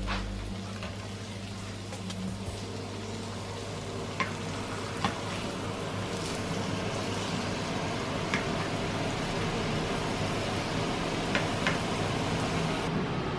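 Thin slices of meat sizzling steadily in oil in a nonstick frying pan. A few brief sharp clicks come through as the slices are turned over with tongs.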